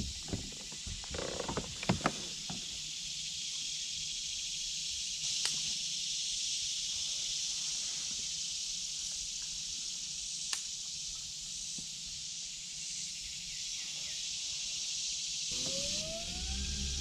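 Steady high insect drone from the trees, with a few light knocks of gear being handled in the first couple of seconds. Near the end a kayak's electric trolling motor spins up with a rising whine and settles into a steady hum.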